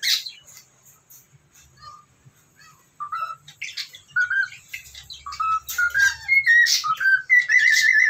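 Cockatiel whistling and chirping. A sharp call at the start is followed by a few faint chirps, then from about three seconds in comes a run of short whistled notes and sharp chirps that ends in a warbling trill.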